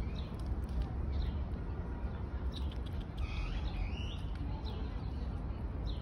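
Birds chirping: short high chirps repeating about once a second, with a longer warbling call about three seconds in, over a low steady rumble.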